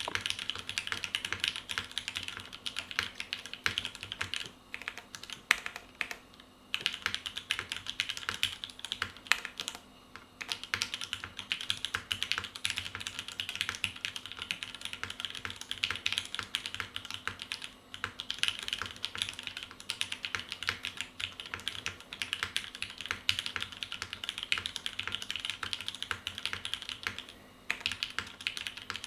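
Typing on an Anamnesis mechanical keyboard with Cherry MX Black linear switches: a fast, dense run of key clacks, broken by a few short pauses.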